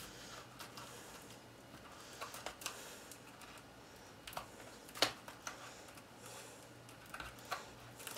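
Scattered faint taps and rustles of hands handling cardstock and pressing glued paper tabs together, with one sharper tap about five seconds in.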